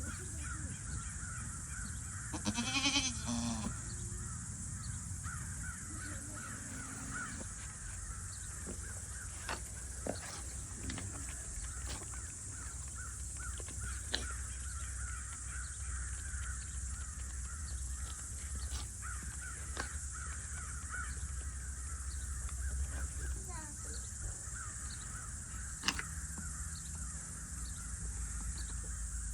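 Outdoor farmyard ambience with birds calling and chirping continuously. A short pitched animal call comes about three seconds in.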